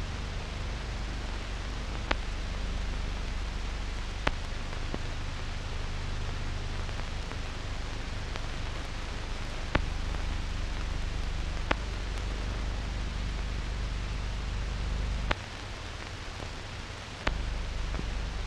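Steady hiss and low hum of a silent film transfer with no soundtrack, with six sharp clicks spread through it. The low hum drops out for about two seconds near the end.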